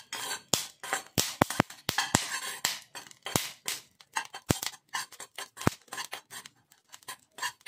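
Melon seeds being dry-roasted in a small steel pan and stirred with a steel spoon: an irregular stream of sharp clicks, scrapes and rattles.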